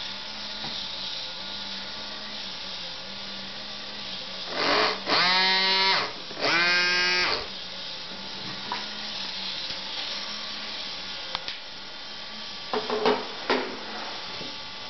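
Sound test of a Robbe RC model of the rescue cruiser Berlin: a steady small-motor hum, with two loud horn blasts of about a second each some five seconds in and a few short clicks near the end.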